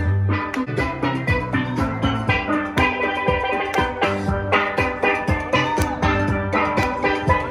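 Steel pan band playing a tune, pan notes over a bass line and a regular beat.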